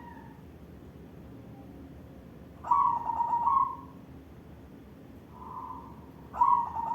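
White barred zebra dove (perkutut) cooing. About three seconds in comes a quick stutter of short notes running into a drawn-out coo, then a softer single coo, and near the end the stuttering call begins again.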